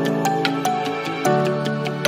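Background instrumental music with sustained pitched notes and light percussive ticks.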